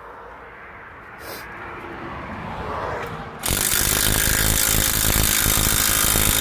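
A power tool starts suddenly about three and a half seconds in and runs loudly with a rapid hammering, worked on a seized front wheel hub assembly to force it off.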